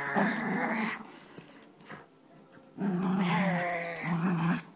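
Dog growling in play while tugging on a rope toy: one growl ending about a second in, then a longer one from near the three-second mark to the end.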